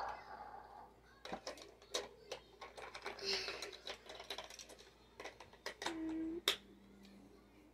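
Hard plastic body panels of a Change and Race Lightning McQueen toy car clicking and snapping as they are pressed on and fitted by hand, a series of irregular clicks. A short hum is heard about six seconds in.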